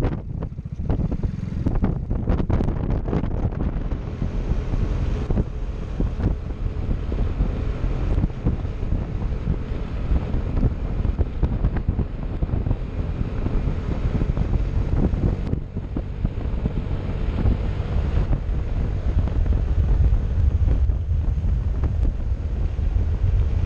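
Heavy wind noise buffeting the microphone of a camera on a moving scooter: choppy and uneven in the first few seconds, then a steady low rush at road speed.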